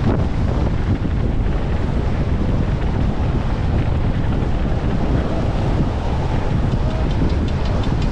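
Steady wind buffeting on the microphone, as from a camera carried fast down a mountain-bike descent.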